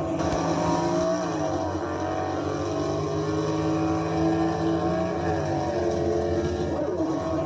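A motor vehicle engine running, its pitch rising and falling slightly.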